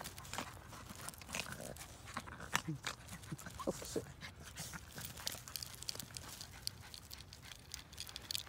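A Yorkiepoo puppy and another small dog play-wrestling on wood-chip mulch: panting, a few short vocal sounds from the dogs about three to four seconds in, and steady scuffling and crunching of the chips under their paws and bodies.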